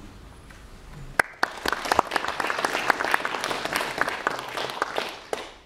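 Audience applauding, starting about a second in with a few claps, filling out into steady clapping and dying away near the end.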